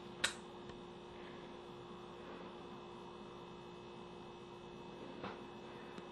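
Quiet room tone with a steady electrical hum, broken by a short click just after the start and a fainter click about five seconds in.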